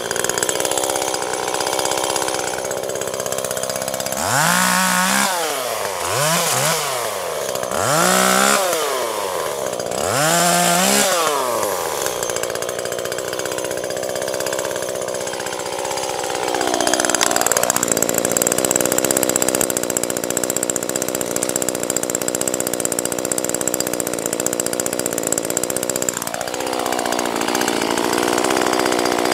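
Husqvarna T525 top-handle chainsaw's small two-stroke engine, fitted with an Oregon Speed Cut nano chain. It is revved four times in quick rises and falls, then held at full throttle for long stretches while cutting branches, its pitch dipping briefly twice.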